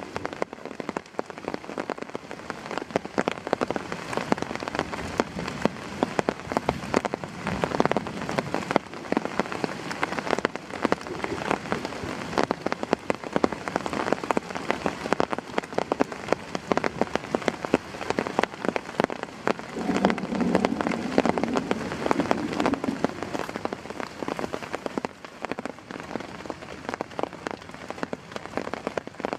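Heavy rain falling steadily, a dense, irregular patter of drops hitting close by, with a deeper swell for a few seconds about two-thirds of the way through.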